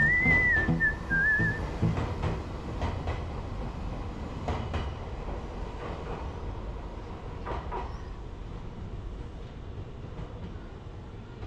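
Nankai Rapi:t electric train pulling away from the platform, a low rumble with scattered wheel clacks that fades steadily as it recedes. A high wavering whistle sounds over the first second or two.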